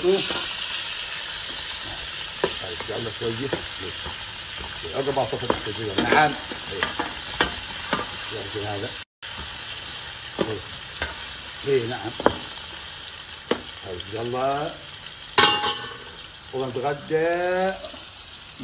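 Sliced potatoes frying in hot oil in a large pot, a steady sizzle. A metal ladle stirs them, with repeated knocks and scrapes against the pot.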